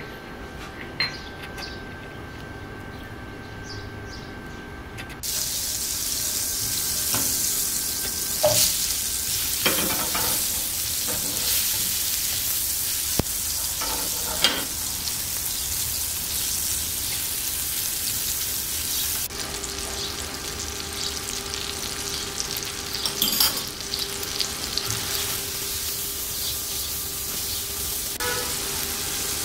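Butter and cubed apple frying in a nonstick pan: a steady sizzle that is quiet at first and jumps much louder about five seconds in, then holds. A few sharp clicks come from the silicone utensil stirring and turning the apple pieces against the pan.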